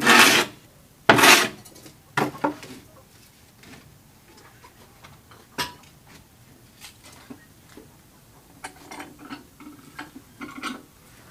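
Plywood boards being handled on a metal-framed work table. In the first couple of seconds there are three loud sliding, clattering knocks as a board is lifted away, then scattered lighter knocks and taps as the sheet is shifted into place.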